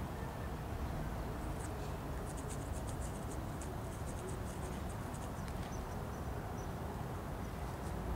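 Indian ringneck parakeet scratching and clicking with its beak as it chews, a quick run of small high ticks from about a second and a half in until about five seconds, over a steady low rumble.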